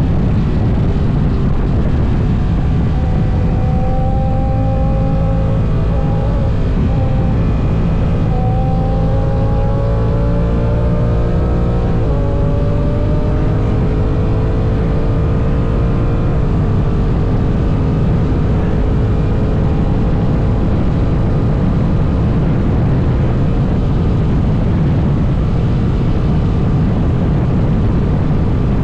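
Honda NT1100's parallel-twin engine running at highway speed under heavy wind rush. The engine note climbs, dips sharply about twelve seconds in, climbs again and then holds steady.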